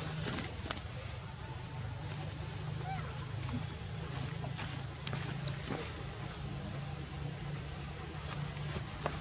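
Steady high-pitched drone of forest insects, with a low steady hum underneath and a few faint scattered clicks.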